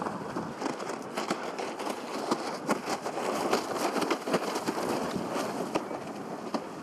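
Water and wind noise on open water: a steady rush with many short slaps and crackling splashes, as windsurf boards plane and spray over choppy water.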